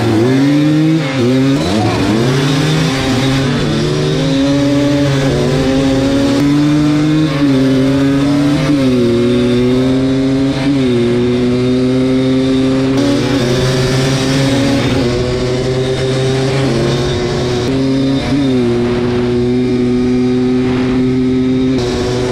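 Vintage two-stroke ATV engines, a Yamaha Blaster and a Kawasaki Tecate 4, at full throttle in a drag-race launch. The pitch climbs and drops sharply at each of several upshifts, then settles into a steady high drone at speed.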